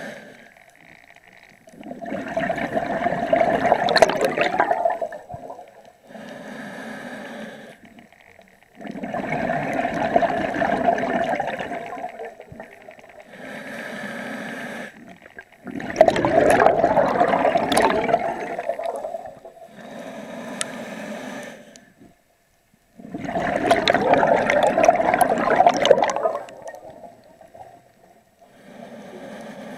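Scuba diver breathing through a regulator underwater: slow, even breaths, each a quieter hiss followed by a louder gush of exhaled bubbles, four breaths about seven seconds apart.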